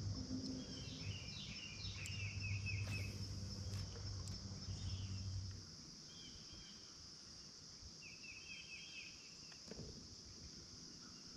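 Insects chirring steadily at a high pitch, with birds trilling in short runs twice. A low steady hum underneath stops about halfway through.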